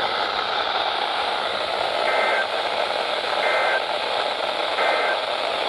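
Weather radio hiss and static with three short, identical two-tone data bursts about a second and a half apart: the SAME digital code of an Emergency Alert System broadcast, in the short form of the end-of-message signal.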